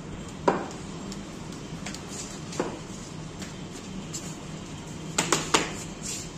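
A few sharp clicks and knocks: a loud one about half a second in, a fainter one a couple of seconds later, and three in quick succession near the end, over a low steady hum.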